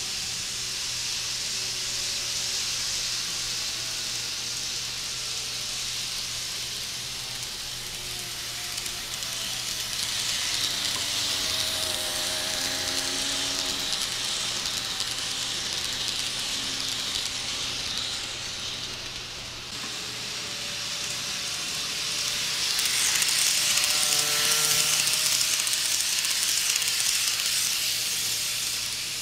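KATO E531 N-scale model commuter train running along the track: a steady high hissing rush with a faint whine that bends up and down in pitch, swelling twice as the eight-car train passes close, loudest near the end. The motors on this model are pretty loud.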